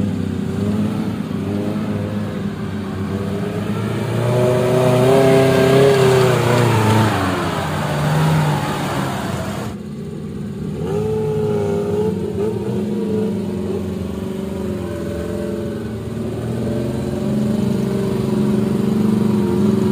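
Off-road Suzuki Jimny engine revving under load as the 4x4 climbs a rutted dirt track. The revs rise about four seconds in and fall away a few seconds later. The sound changes abruptly about ten seconds in, after which an engine pulls on with smaller rises and dips in revs.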